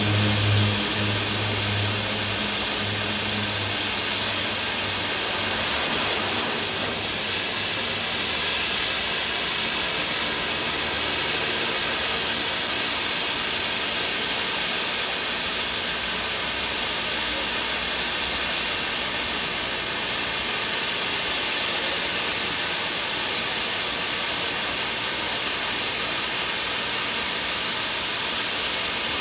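A small propeller plane's low drone fades away over the first few seconds as it climbs out after take-off. It is followed by a steady, even hiss.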